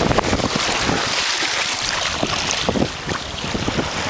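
Wind buffeting the microphone over the rush and splash of choppy water along the hull of a sailing sea kayak moving fast. The noise eases briefly about three seconds in.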